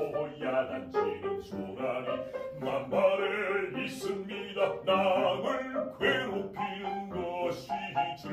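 A bass voice sings a Korean art song in a dramatic, declaimed style, accompanied by a grand piano.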